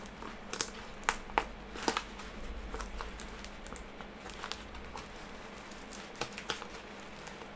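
Fingers picking and tearing at the edge of a cardboard mailer envelope: scattered small scratches, crackles and ticks of cardboard and paper, a few sharper ones in the first two seconds and again about six seconds in.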